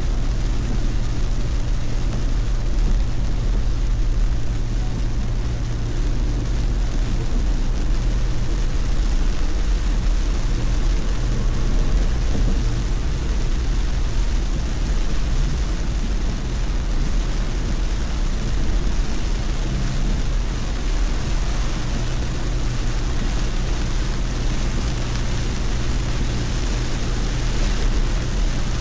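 Steady low drone of a car being driven at expressway speed, heard from inside the cabin, with the hiss of tyres and rain on wet pavement over it.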